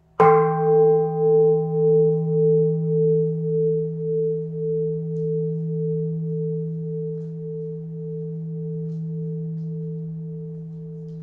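A large temple bowl bell struck once, ringing on with a tone that swells and fades a little under twice a second over a deep steady hum, slowly dying away.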